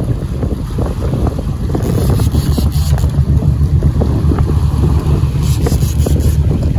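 Wind buffeting the microphone on an open boat: a loud, steady low rumble with a few faint clicks.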